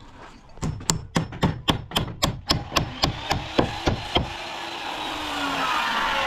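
A hammer driving nails into timber rafters: a quick run of about fourteen sharp strikes, about four a second. After about four seconds the strikes stop and a steady rushing sound builds, with a few gliding tones in it.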